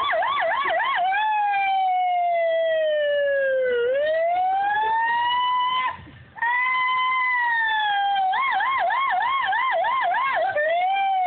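A person imitating a police siren with his voice: a fast yelping warble, then a long slow wail that dips and climbs back, a brief break about six seconds in as he takes a breath, then the fast yelp again.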